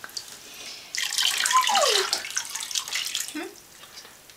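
Water poured from a cup splashing over a baby in an infant bathtub, for about two seconds starting about a second in.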